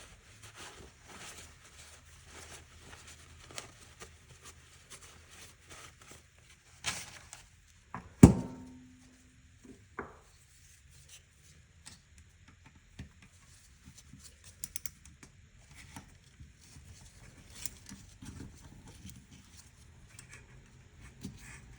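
Hand work in a workshop: light clicks, taps and rustles of tools and parts being handled. About eight seconds in there is a sharp, loud metallic clank with a brief ring, like a tool or part set down hard.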